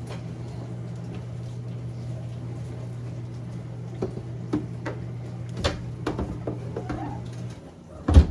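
Refrigerator shelves being handled and fitted into place: light scattered knocks and clatter, with the loudest knocks near the end. A steady low hum runs underneath and cuts off a little before the end.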